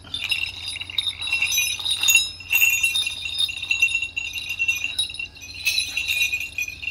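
Brass sleigh bells on leather leg straps (dance bells) jingling as they are handled and fastened around the legs, starting abruptly and going on with brief lulls about two and a half and five seconds in.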